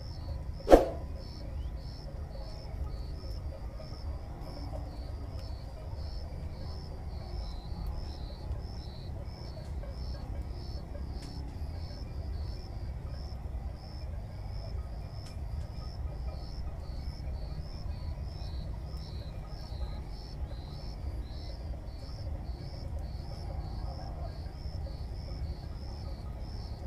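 Insects chirping in a steady, rapid pulsing rhythm over a low steady rumble, with one sharp knock with a short ring about a second in.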